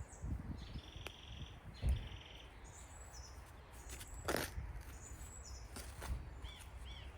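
Small birds chirping and singing in short high notes, over low rumbling, with one short sharp noise about four seconds in.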